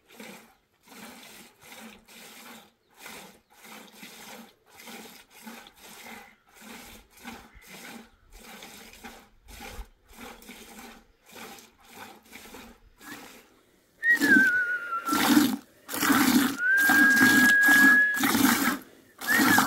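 Hand milking: milk squirting into a pail in a steady rhythm of about two squirts a second, faint at first and much louder from about two-thirds of the way through. In the loud part a high whistle-like tone also sounds, sliding down and then holding steady.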